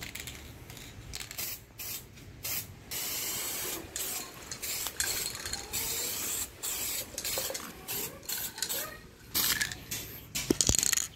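Aerosol spray-paint can hissing in a dozen or so short bursts as paint is sprayed onto a bicycle frame, the loudest near the end.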